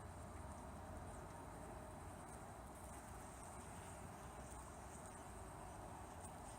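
Insects trilling steadily in a high, thin band over a quiet, even background hiss.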